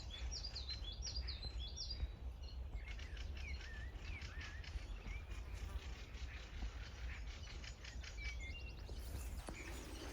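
Small birds chirping: many short, quick calls that dip and rise in pitch, thinning out in the middle and picking up again near the end, over a low steady rumble.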